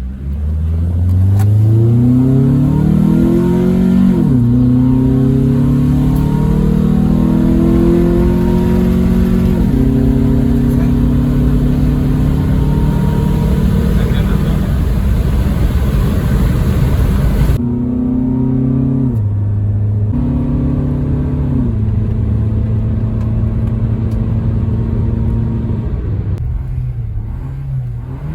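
2003 Honda Accord engine breathing through a newly fitted aftermarket ram air intake, accelerating hard: its pitch climbs and drops sharply at gear changes about 4 and 10 seconds in, then runs steadier with a few more shifts in the last third, over road rumble.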